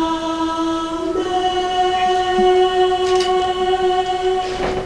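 Choir holding long sustained notes at the close of a Latin chant, moving to a new chord about a second in and holding it.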